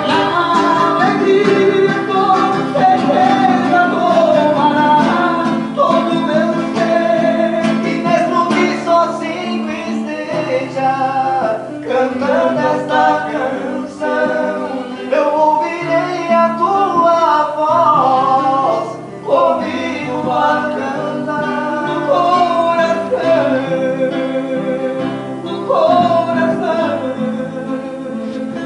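A Christian song sung by a vocal duo with guitar accompaniment.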